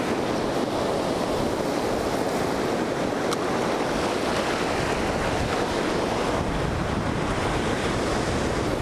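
Ocean surf breaking and washing over the shallow sand, a steady rushing, with wind buffeting the microphone.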